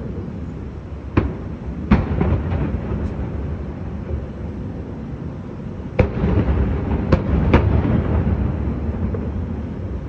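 Aerial fireworks shells bursting at a distance: five sharp booms, two in the first two seconds and three more from about six seconds in, over a continuous low rumble of echoing reports.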